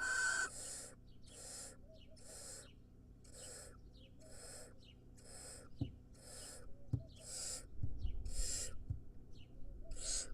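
Barn owl nestling giving its rasping, hissing call over and over, about one call a second. This is the call barn owl chicks use to beg for food. A few dull knocks come around the middle.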